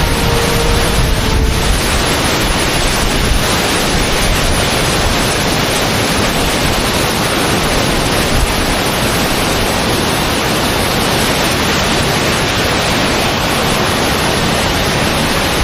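Waterfall in heavy post-cyclone flow, a steady, loud rush of falling water, with wind buffeting the microphone.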